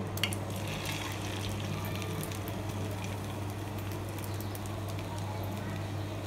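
Egg-coated stuffed dosa pocket going into hot oil in a frying pan, crackling and spattering with many fine clicks from just after the start, over a steady low hum.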